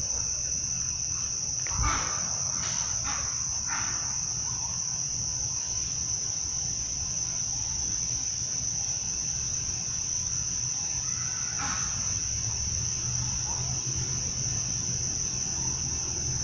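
Night insects chirping in a steady high-pitched chorus, with a thump about two seconds in and a few short unidentified noises just after it and again about twelve seconds in.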